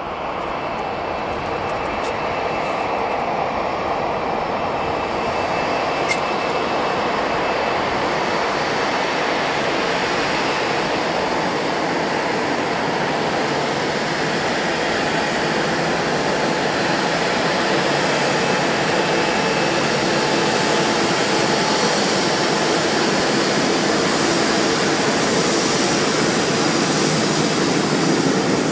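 Boeing 787-8's Rolls-Royce Trent 1000 jet engines running at taxi power as the airliner taxis close past: a steady whine and rush that grows gradually louder and brighter as it nears.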